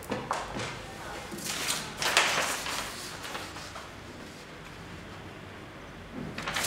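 Handling noises: sneaker soles scuffing on a stone floor and a sheet of paper rustling as it is moved about. There is a louder swishing rustle about two seconds in and another short scuff near the end.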